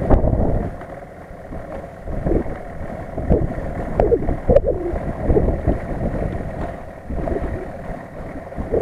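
Wind buffeting the microphone: an uneven low rumble that swells and dips in gusts.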